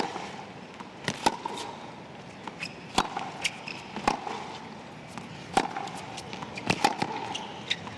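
Tennis ball struck back and forth with racquets during a rally: sharp pops of racquet on ball and of the ball bouncing, coming roughly every second or so over a low crowd hush.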